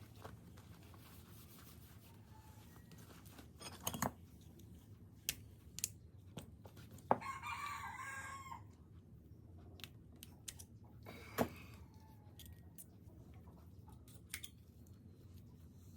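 A rooster crowing once, about seven seconds in, over a low steady background broken by scattered sharp clicks and knocks.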